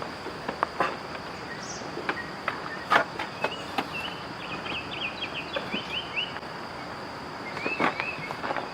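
Steady high insect buzz, with scattered sharp clicks and knocks from handling the plug and cord, and a bird twittering briefly about three and a half seconds in and again near the end.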